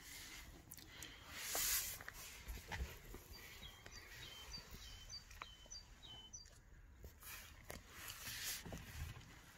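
Faint quiet ambience in which a bird outside repeats a short high chirped call about five times in the middle, over soft rustles and clicks, with a brief hissy rustle about one and a half seconds in.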